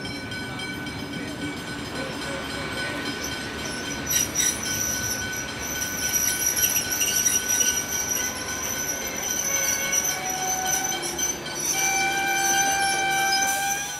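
A train of ex-Southern Aurora stainless-steel passenger carriages rolling past close by, wheels running on the rails with steady high-pitched squealing tones over the rolling noise. The sound grows louder about halfway through, and more squealing tones join in near the end.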